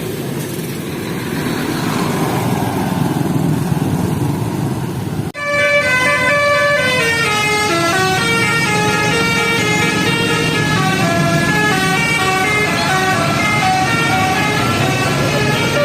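Heavy truck engine and road noise, then, after an abrupt cut about five seconds in, a telolet basuri horn playing a tune of short stepped notes over the truck's running engine.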